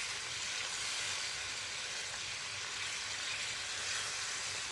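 Masala paste of ground onion, tomato, ginger, garlic and spices sizzling steadily in hot oil in a pan. It is being fried down until the oil separates.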